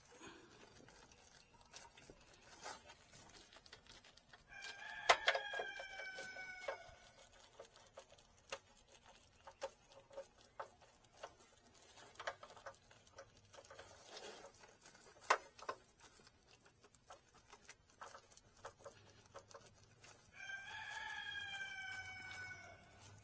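A rooster crows twice, once about five seconds in and again near the end, each a single long call falling slightly in pitch. Scattered sharp clicks and taps are heard between the crows.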